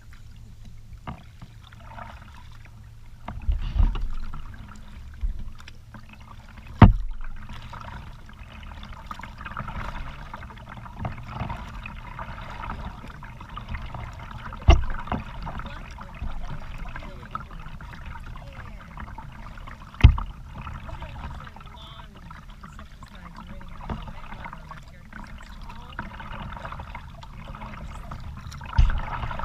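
Kayak paddling on a creek: water splashing and trickling off the paddle over a steady low rumble, with about five sharp knocks spread through.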